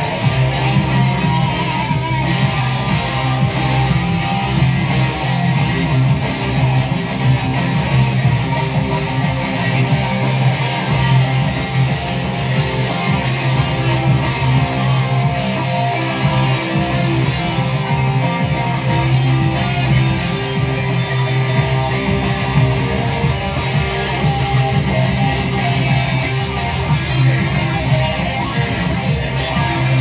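Electric guitar playing continuously, with a steady low tone running underneath.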